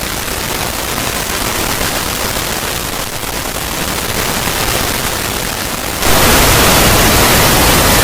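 Stomach growling sped up so far that it has become a steady static-like hiss, which jumps louder about six seconds in.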